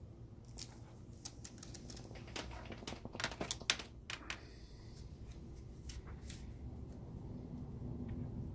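Sheets of printer paper rustling and crackling as a cat walks on them and bats at the stack, a run of sharp crackles densest about three to four seconds in, over a low steady hum.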